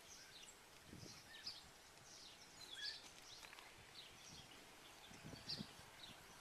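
Faint birdsong: many short high chirps, repeated every half second or so, over quiet outdoor ambience, with a couple of soft low thumps.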